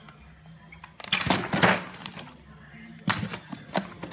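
Plastic food packaging crinkling and rustling as packs are lifted out of a box on ice, in two loud bursts of crackles and clicks, about a second in and again near three seconds.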